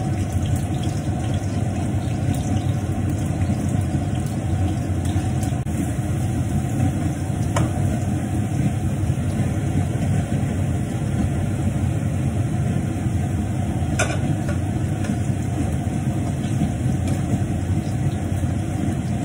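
Potato wedges frying in oil in a pan, with a light sizzle and a metal spatula clicking against the pan twice, over a loud, steady low rumble from the kitchen range hood fan.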